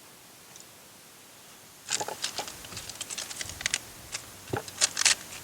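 A quiet hiss, then from about two seconds in a quick run of small clicks, taps and rustling as hands handle small plastic interior light parts and bulbs.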